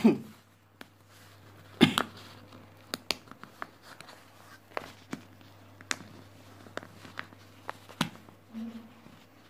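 Paper envelope being worked open by hand: scattered crackles and rustles of stiff paper, the loudest about two seconds in.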